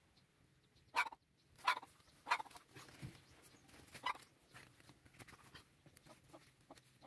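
A few short animal calls, four in the first four seconds or so, over faint background noise.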